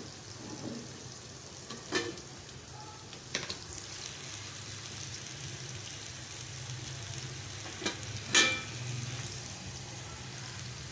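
Bitter gourd pieces frying in oil in a wok, a steady sizzle over a low hum. A few sharp knocks come through it, the loudest about eight and a half seconds in.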